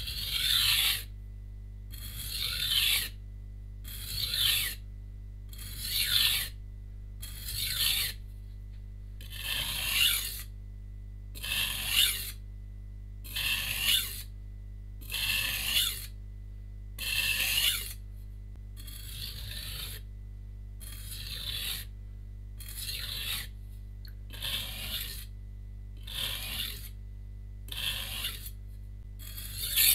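A santoku knife with a VG-10 steel core being stroked along a coarse 180-grit whetstone, one scrape about every two seconds, a few quieter ones past the middle. These are the finishing passes on the coarse stone, after an even burr has formed on both sides of the edge.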